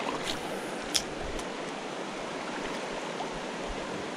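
Steady rush of river rapids pouring into a pool, with a single sharp click about a second in.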